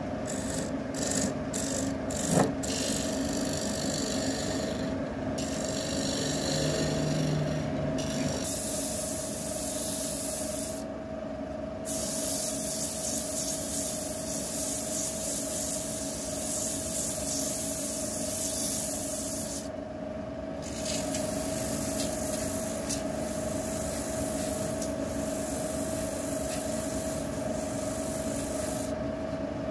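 Woodturning lathe running with a steady hum while a tool rasps against the spinning wood. The rasping drops out briefly twice.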